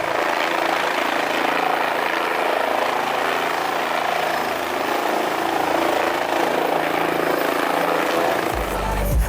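Steady engine noise of an aircraft, an even rushing hum with no deep bass.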